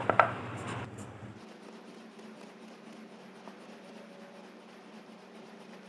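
Wooden rolling pin rolling out dough on a wooden board. There are a few knocks and rubbing in the first second, then only faint rubbing.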